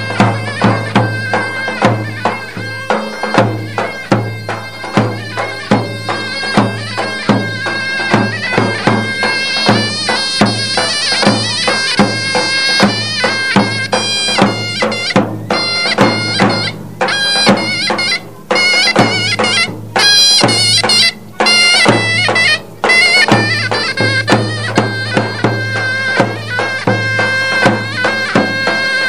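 Turkish davul and zurna folk music: the double-reed zurna plays a melody over regular strikes of the large two-headed davul drum, with a few brief stops in the middle.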